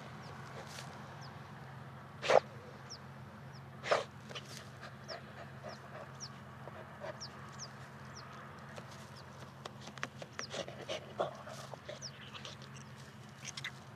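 Jack Russell terrier panting and scuffling, with many small scuffs and two louder knocks a couple of seconds in. A steady low hum sits underneath.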